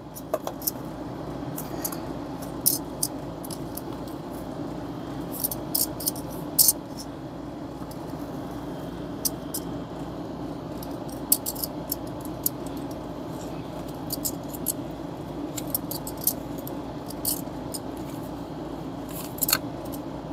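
Metal kitchen tongs clicking and tapping in a disposable aluminium foil pan as raw chicken drumsticks are turned over, in irregular sharp clicks over a steady low background hum.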